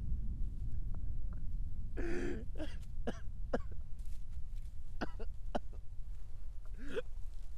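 An injured man coughing hard about two seconds in, followed by several short sharp sounds and a strained groan near the end, over a low steady rumble.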